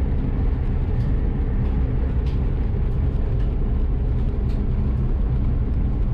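Steady low rumble of a vehicle's engine and road noise heard from inside the cab while driving, with a few faint light clicks.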